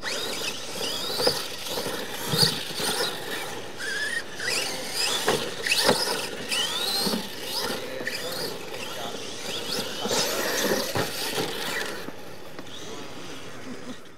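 RC monster trucks racing on dirt: motors and gears whining, the pitch rising again and again as they accelerate, with tyres scrabbling on dirt and several sharp thumps from the trucks hitting the ground.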